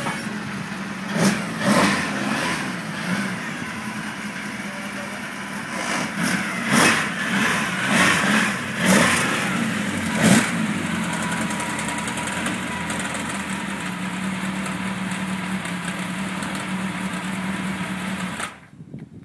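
TVR Tuscan race car's engine idling, with several quick blips of the throttle, then settling to a steady idle. The sound drops away abruptly near the end.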